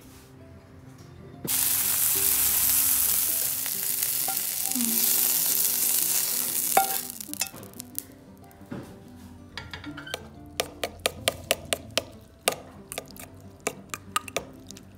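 Food dropped into hot oil in a nonstick frying pan, sizzling loudly for about five seconds before dying away. Then a utensil clinks rapidly against a ceramic bowl as the fried onion and tomato are stirred.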